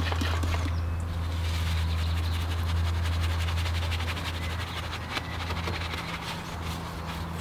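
Detailing brush scrubbing all-purpose cleaner over engine-bay parts, a fine, fast scratching over a steady low hum.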